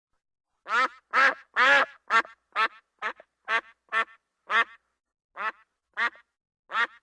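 Duck quacking in a series of about a dozen calls, starting just under a second in. The first three are longer, louder and close together; the rest are short single quacks about half a second apart, spacing out toward the end.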